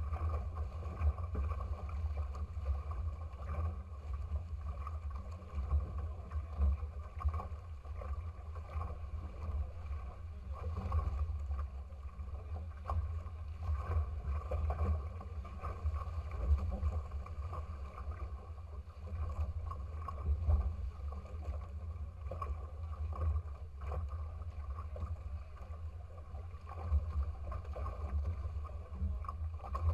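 Water rushing and splashing past the hulls of a small sailing trimaran under way, with a heavy, uneven low rumble throughout.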